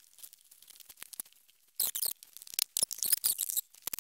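Bar clamps being ratcheted tight on a glued wooden hive box, with wood knocking and rubbing as the box-jointed sides are pressed together. A dense run of rapid clicks and squeaks comes about two seconds in.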